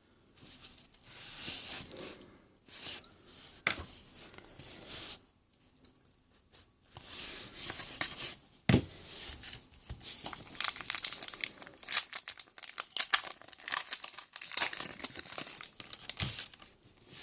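Foil trading-card pack wrapper being crinkled and torn open, with irregular crackling that thickens into a dense run in the second half, and one dull knock about nine seconds in.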